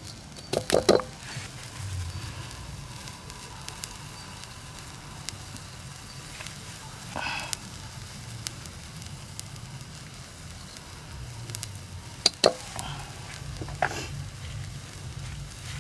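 Metal ladle stirring and scraping dry rice grains around a steel wok, over a steady sizzle. There are sharp clinks of ladle on wok near the start and twice more late on.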